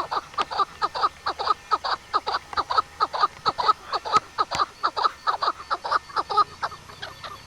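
A fast, unbroken run of short bird calls, about six a second, each note sliding downward in pitch.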